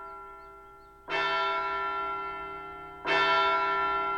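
A large bell tolling, like a church or clock-tower bell: two strokes about two seconds apart, each struck sharply and ringing on as it slowly fades.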